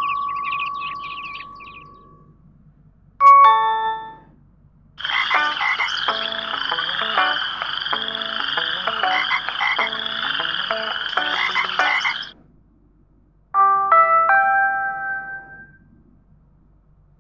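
LG GW300 mobile phone playing its built-in ringtones and alert tones one after another. A held tone fades out, a short chime comes in about three seconds in, then a roughly seven-second electronic tune with a fast warbling high line over stepping lower notes, and near the end another short chiming melody.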